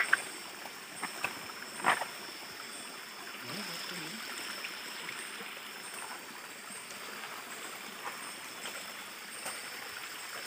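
Rocky forest stream running, a steady rush of water. There are a few sharp knocks in the first two seconds, and a steady high whine with short high chirps repeating about every three-quarters of a second.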